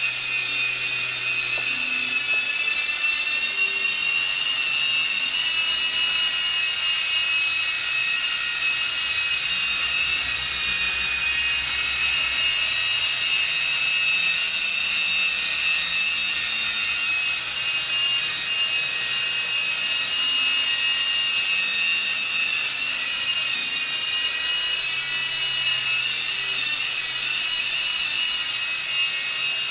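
Small electric motors of an M12 3.5-channel remote control toy helicopter running: a steady high-pitched whine that wavers slightly in pitch.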